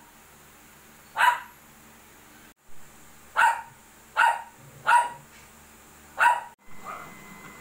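A dog barking: about five short, sharp single barks, a second or so apart, over a faint steady low hum.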